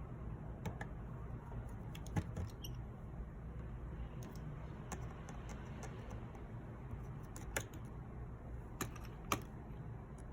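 Scattered small clicks and taps of tools and phone parts being handled during iPhone reassembly, a few sharp ones standing out, over a steady low hum.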